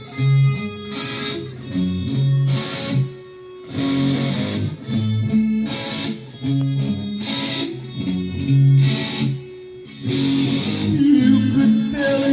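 Instrumental passage of a home-recorded rock song demo: electric guitar over bass, with no singing.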